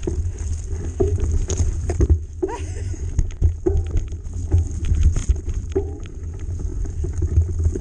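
Mountain bike ridden fast over a rough, muddy grass track, heard from a camera on the bike or rider: a steady rumble of wind on the microphone, with frequent clicks and knocks as the bike rattles over bumps.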